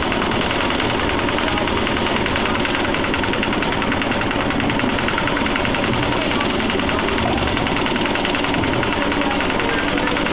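Small diesel engine of a Lister 4wDM rail autotruck running steadily under way, with a rapid, even knocking beat, along with the running noise of the narrow-gauge train on the track.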